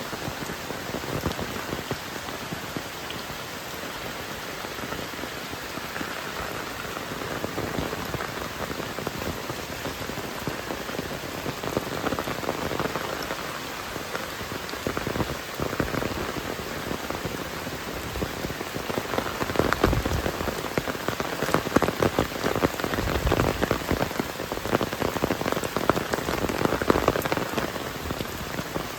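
Heavy rain falling steadily, with many close drops striking as sharp ticks. It grows louder about two-thirds of the way through.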